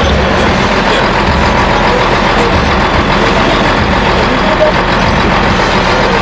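A heavy engine running steadily and loudly, with a churning low rumble.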